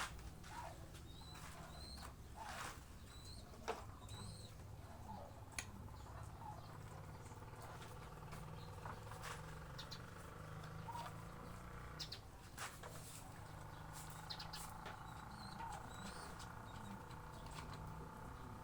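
Faint background of small birds chirping in short rising chirps, with scattered sharp clicks and a low steady hum underneath.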